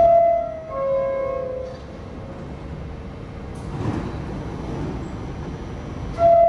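New York City Subway door-closing chime, a falling two-note 'bing-bong', sounding at the start and again near the end. A brief rush of train noise swells in between.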